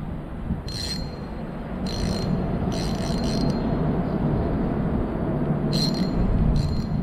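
Steady low rumble of traffic on a highway bridge overhead, growing a little louder in the second half. Short high-pitched bursts cut through it about once a second.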